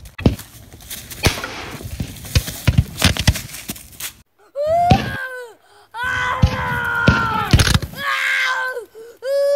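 A quick, irregular run of sharp cracks and knocks for about four seconds. Then, after a short gap, children's long drawn-out cries and wails, acting out being shot and wounded.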